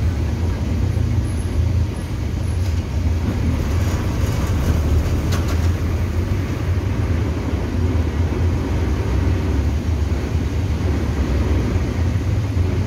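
City bus engine running steadily, heard from inside the bus as a low hum under road noise, with a few light rattles about four to five seconds in.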